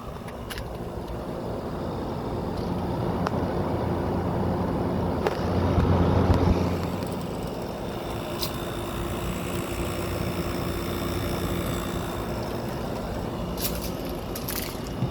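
General Electric 6,000 BTU wall air conditioner's compressor and condenser fan running steadily with a low hum, working hard in summer heat. The hum swells louder about six seconds in, then settles back.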